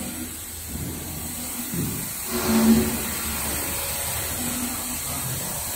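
Five-axis CNC machine's spindle milling the surface of an aircraft wing mould: a steady hiss of cutting, with a low hum that comes and goes and swells a little after two seconds in.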